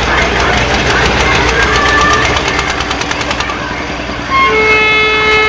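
Fairground kiddie airplane ride turning, with fast, even clicking and background voices. About four seconds in, a steady horn-like tone starts and holds.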